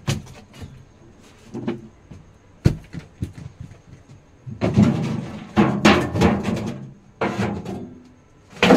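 Household objects being shifted and knocked about on a wooden shelf: a few sharp knocks, then a busy stretch of clatter and bumping from about halfway, with another loud knock near the end.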